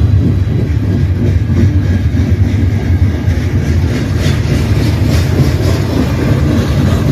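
Long CN freight train rolling past: a steady low rumble of wheels on rail, with clicks of wheels over the rail joints that come more often from about four seconds in.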